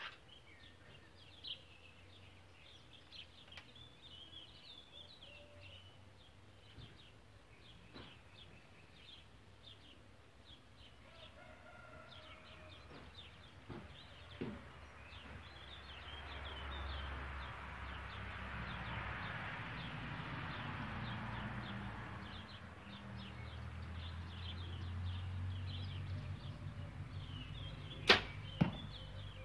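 Compound bow shot near the end: a single sharp, loud snap as the hinge release fires and the string drives the arrow off, followed about half a second later by a second, weaker crack.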